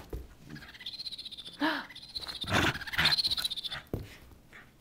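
Small stuffed hedgehog toy chirping: a high, rapidly pulsing electronic trill for a couple of seconds as a schnauzer shakes it in its mouth.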